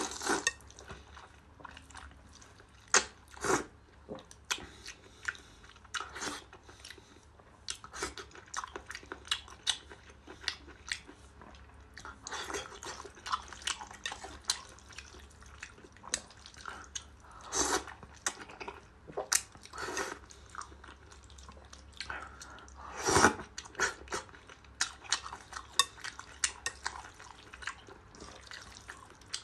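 Close-miked eating: noodles and braised abalone in a thick sauce slurped and chewed wetly, with chopsticks clicking against the plate. The slurps come as several longer wet bursts, the loudest about 23 seconds in, among many short smacks and clicks.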